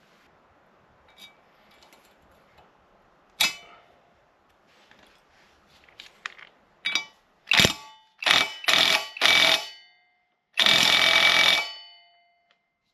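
A sharp metallic clank, then five short bursts and one longer burst of about a second from a power tool, with metal ringing after each burst.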